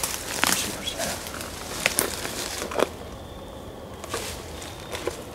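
Irregular clicks, scrapes and rustles of a trail camera and its mounting strap being handled and pressed against a tree trunk.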